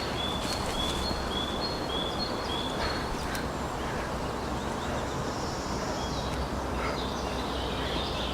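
A small bird chirping: a run of short, high notes about two a second for the first few seconds, then fainter notes again later, over a steady outdoor background hiss.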